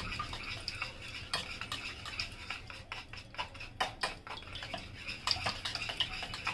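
Small wire whisk stirring dry flour in a shallow plate, its wires ticking and scraping against the plate in quick, irregular strokes.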